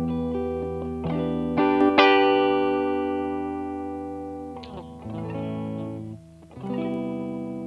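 Electric guitar chords played through an optical compressor pedal, struck several times and left to ring out with a long, slowly fading sustain; a brief dip between chords near the end.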